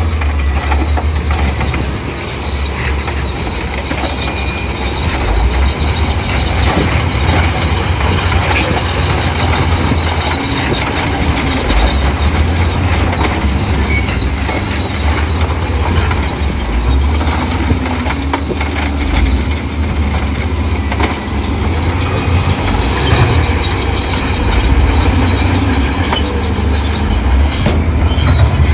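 Crawler bulldozer working: a steady low diesel rumble, with the steel tracks squealing and clanking throughout.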